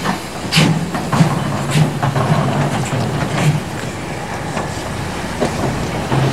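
DR class 86 steam tank locomotive moving slowly along the track. Its wheels and running gear give a run of sharp clanks and knocks, closest together in the first few seconds.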